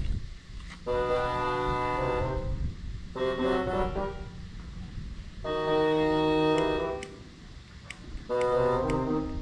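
Background music: held organ-like keyboard chords, four in turn with short gaps between.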